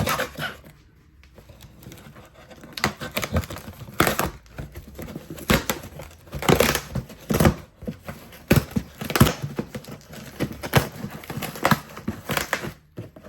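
A sealed cardboard box being torn open: irregular ripping and crinkling strokes, starting after a brief quiet pause.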